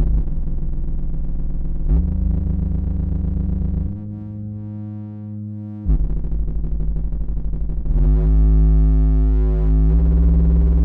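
Pittsburgh Modular System 1 modular synthesizer playing low, buzzy sustained tones that step to a new pitch and timbre about every two seconds. About eight seconds in, a brighter, harsher tone takes over.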